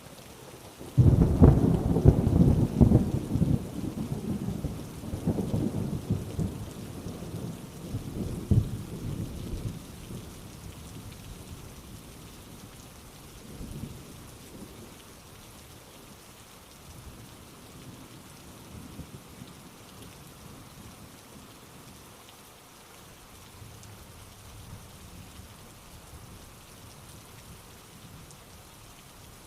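Steady rain falling, with a loud thunderclap about a second in that rumbles on and fades away over several seconds; a fainter roll of thunder comes about halfway through.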